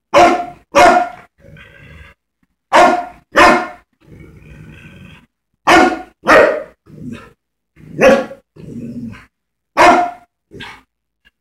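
Dog barking loudly at a vacuum cleaner, the barks mostly in quick pairs every two seconds or so, with low growling between them.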